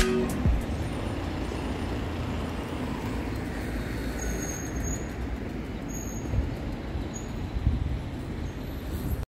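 Steady outdoor ambient noise: a low rumble with a hiss over it. A few brief high-pitched whistles come between about four and seven seconds in.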